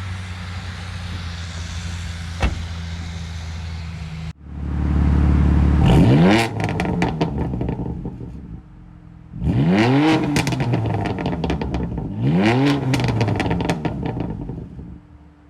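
BMW M4's twin-turbo inline-six catches about four seconds in with a flare of revs, then is revved up and let fall twice, with crackling from the exhaust.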